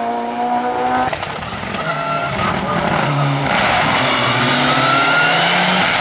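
A race car's engine revving high for about a second, then, after a sudden change, a Mitsubishi Lancer Evolution rally car coming up the course at speed: its engine note shifts and rises as it nears, getting louder from about halfway through.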